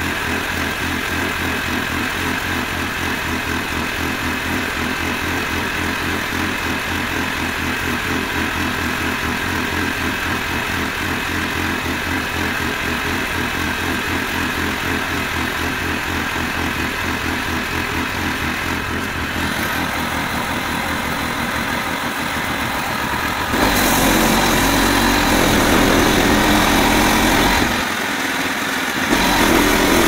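Lifan gas engine on a portable bandsaw mill idling steadily with an even beat. About 23 seconds in it grows clearly louder, dips for about a second near the end, then runs loud again.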